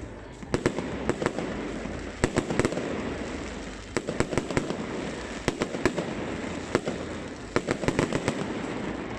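Fireworks display: clusters of sharp bangs from bursting aerial shells, several in quick succession about every second or two, each followed by a rumbling echo.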